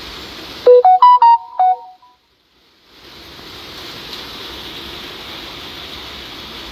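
Steady rain hiss, broken about a second in by a loud, short electronic jingle of about six quick notes, like a phone ringtone or notification chime. The rain sound drops out completely under the jingle and stays silent for about a second before it returns.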